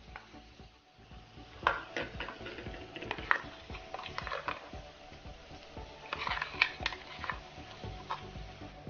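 Clinks and taps of a spoon scraping ground masala paste out of a steel mixer-grinder jar into a kadai, the taps coming irregularly with a quick run of them about six seconds in. Under them a faint steady sizzle of onions frying in ghee.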